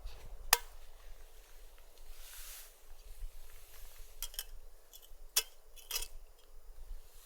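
A few sharp clicks and knocks, one about half a second in and a close pair in the middle, with a brief soft hiss between, over a steady low rumble of wind on the microphone.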